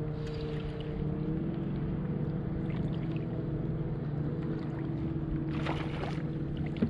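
A steady low motor hum with a couple of higher overtones, and a short hissing noise about five and a half seconds in.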